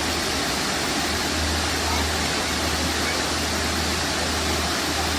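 Waterfall: a steady, even rush of falling water, with a low steady rumble beneath it.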